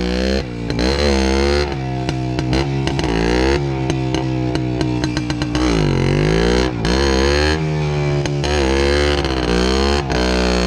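Jawa 250 type 579 'Švéd' single-cylinder two-stroke engine revving up and falling back again and again, with brief throttle cuts, while the rear wheel spins in loose sand.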